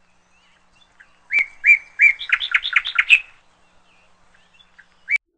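Birdsong: a few clear whistled notes, then a quick run of rising chirps, and one more short chirp near the end.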